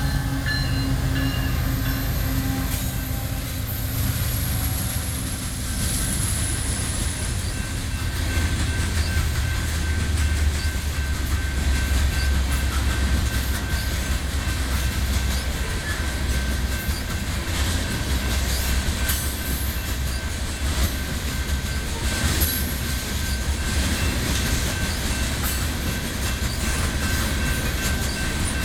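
Loaded coal train rolling past: a steady low rumble of the cars, with wheels clicking over rail joints and a thin, steady wheel squeal. A high tone falls slowly in pitch over the first several seconds.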